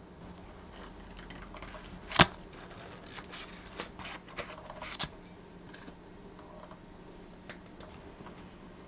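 Kitchen handling sounds: a sharp knock about two seconds in, the loudest sound, then light clicks and crinkling as a knife cuts butter from its foil wrapper, and a few soft taps near the end.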